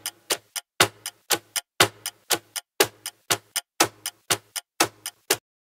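Countdown-timer sound effect: sharp, even ticks about four a second, the first of each second louder, stopping abruptly as the count reaches zero.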